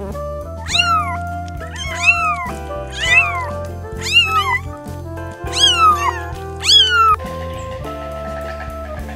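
An animal calling six times, about a second apart, each a short high cry that rises and then falls in pitch, over background music with a steady bass.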